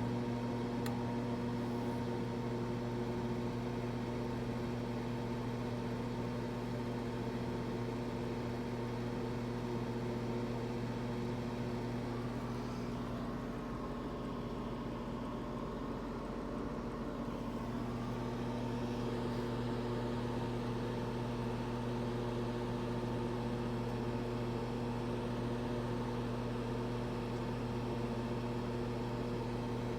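Microwave oven running: a steady, even hum that holds unchanged, with the oven heating food.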